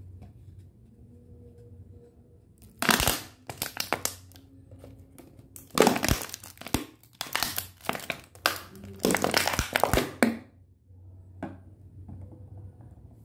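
Plastic drink bottle crinkling and crackling as it is gripped and squeezed in the hand, in two stretches: a short one about three seconds in, then a longer one of about four seconds.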